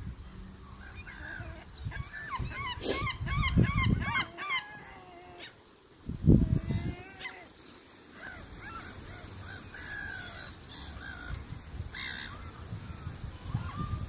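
Gulls calling: a rapid series of repeated yelping calls about three seconds in, then scattered single calls. Wind rumbles on the microphone, with a loud low thump about six seconds in.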